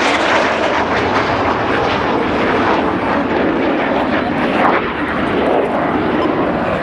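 Loud jet noise from the Red Arrows' BAE Hawk T1 jets flying the synchro pair's low-level manoeuvre; about halfway through the sound drops lower in pitch as the jets pass and draw away.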